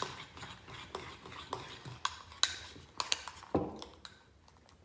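Spoon stirring sticky, thickening fluffy slime in a bowl: irregular clicks and scrapes of the spoon against the bowl, which die away about a second before the end.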